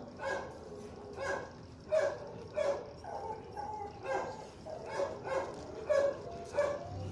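Dog barking repeatedly, about a dozen short barks spread through the few seconds.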